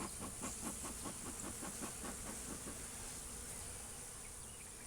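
Honeybees buzzing around an opened hive, with a fast, even pulsing of about six beats a second that fades out a little past halfway, over a steady high hiss.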